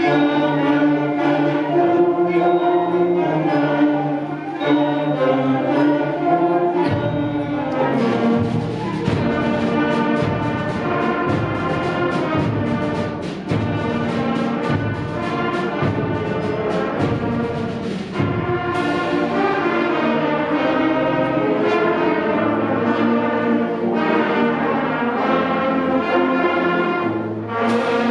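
School concert band playing a holiday fanfare: brass holds chords, and about seven seconds in the percussion comes in with rhythmic strikes under bright brass melodies.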